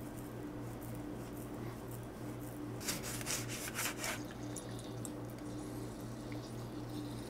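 Chef's knife cutting through a lemon on a cutting board: a cluster of short, crisp slicing sounds about three seconds in, over a steady low hum.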